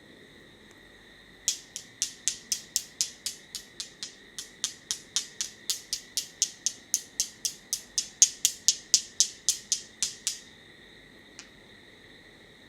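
A rapid run of sharp, crisp clicks or snaps, about four a second, with a brief break about three seconds in; a single faint click follows a second after they stop.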